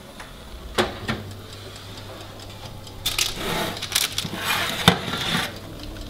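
Oven door clicking shut about a second in, then a low steady hum. From about three seconds in, a metal baking tray scrapes out along the oven's wire rack, with a couple of sharp knocks against the rack.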